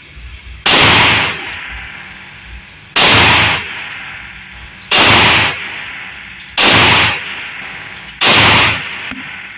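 Five pistol shots from a .357 SIG Glock 31 Gen 4, fired slowly, about one every two seconds, each shot trailing off briefly.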